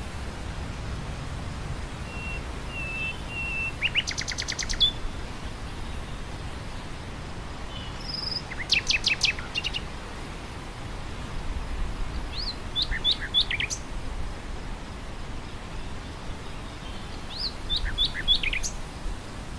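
A nightingale singing four short phrases of rapid repeated notes a few seconds apart, over a steady hiss of wind through grass.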